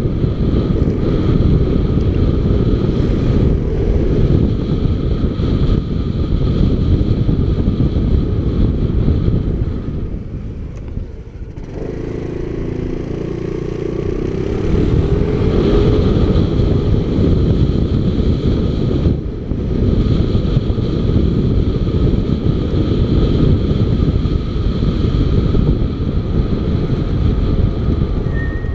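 Motorcycle engine running under way, mixed with wind rushing over the camera microphone. About eleven seconds in it eases off briefly, then picks up again with a rising engine note as the bike pulls away.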